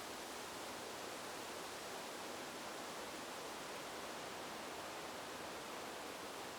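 Steady wind with a rustling hiss of leaves, an even noise with no distinct gusts or breaks.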